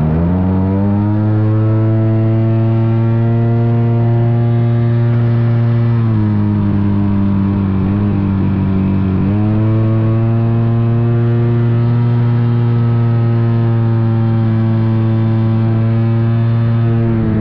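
AJ Aircraft ARS 300 RC airplane's motor running steadily at high throttle, heard from on board the plane. Its pitch climbs as the throttle opens, drops for about three seconds around six seconds in, then climbs back up and holds.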